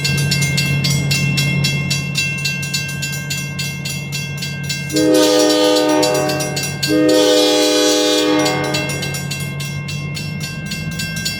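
Locomotive departing: the engine runs steadily while the bell rings quickly and evenly, and the multi-chime air horn sounds two long blasts, the signal that the train is releasing brakes and proceeding.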